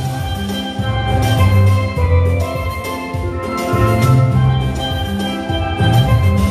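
Steelpan playing a gospel melody in quick struck notes, backed by a drum kit and a low bass line.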